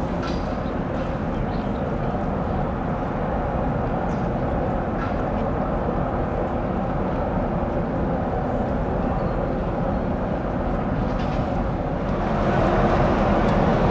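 Steady low rumble of a passenger boat's engine under way, mixed with wind and water noise, growing louder about twelve seconds in.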